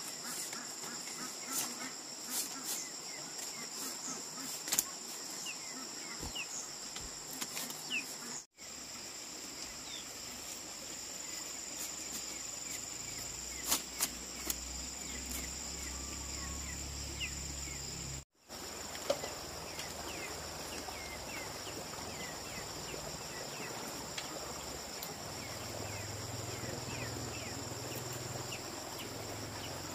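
Steady high-pitched insect chorus running throughout, with scattered faint short chirps and a few sharp clicks and knocks. The sound cuts out briefly twice.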